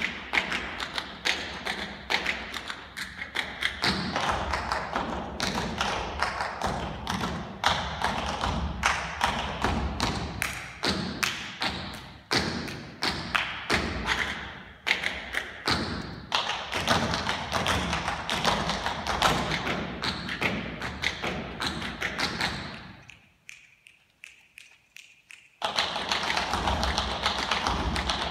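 Tap shoes of two dancers striking the floor in an a cappella rhythm of dense, rapid taps and heavier heel drops. The tapping breaks off for about two seconds near the end, then starts again.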